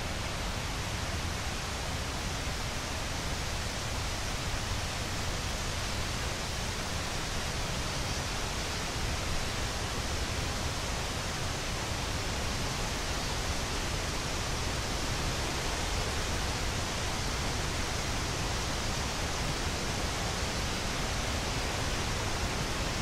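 Wind through quaking aspen leaves: a steady, even rustling hiss with a low rumble underneath.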